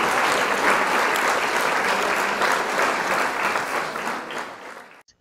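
Audience applause, many hands clapping in a dense patter that fades and then cuts off about five seconds in.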